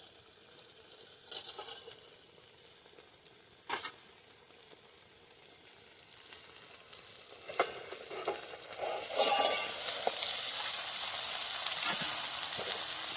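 Banana-leaf-wrapped rohu fish parcels frying in mustard oil on a tawa: a few short clinks and knocks of dishes, then the sizzling grows louder from about nine seconds in as the parcels are uncovered to be turned.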